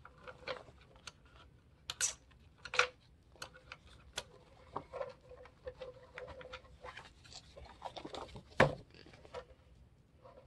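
Punched paper pages being worked onto twin-loop binding wire by hand: irregular light clicks, taps and rustles as the pages catch on the wire's loops, with a sharper knock about eight and a half seconds in.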